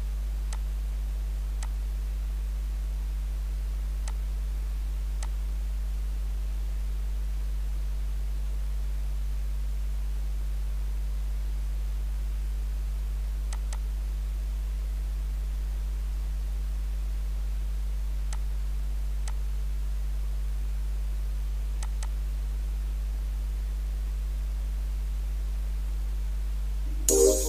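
Steady low electrical hum with a few faint, widely spaced mouse clicks. Loud electronic music cuts in right at the end.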